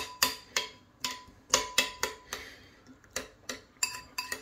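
Metal spoon clinking against the sides of a ceramic bowl while stirring a liquid onion marinade, about two or three ringing clinks a second at an uneven pace.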